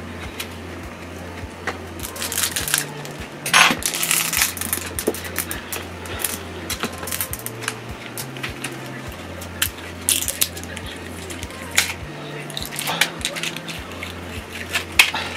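Clicks and taps of a metal pry tool and small phone parts against the phone's frame and a hard countertop, scattered and irregular. A steady bass line of background music runs underneath.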